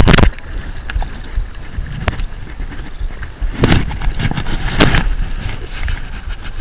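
Hooked bluefish thrashing and splashing at the water's surface. There is a loud splash right at the start and two more bursts about three and a half and five seconds in, over a steady rumble of wind on the microphone.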